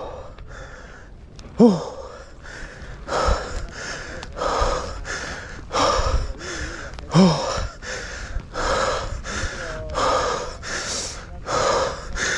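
A mountain biker's rapid, hard breathing from exertion, close to a chest-mounted camera microphone, with a short voiced grunt twice.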